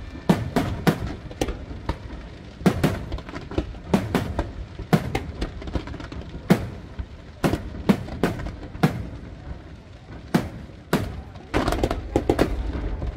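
Large professional fireworks display: aerial shells and comets firing and bursting in an irregular string of sharp bangs, roughly two a second, some in quick clusters, over a low rumble.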